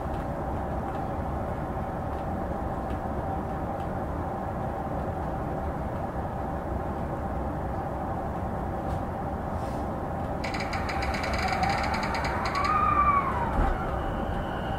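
Inside a JR E233 series electric train standing at a station: the on-board equipment hums steadily. About ten seconds in, a cluster of high tones sounds for about two seconds, along with a tone that rises and then falls. Near the end the steady whine of the traction inverter sets in as the train begins to move off.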